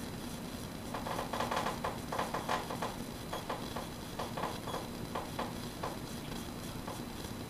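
Water in a hydrographic dip tank sloshing and splashing as a part on a handle is pushed through it: an irregular run of small splashes for a few seconds, over a steady low hum.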